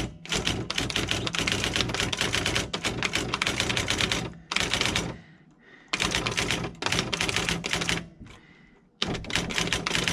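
Sears 10k40 electronic daisy wheel typewriter printing as it is typed on: fast runs of print-hammer strikes through the daisy wheel, in bursts of one to four seconds with short pauses between.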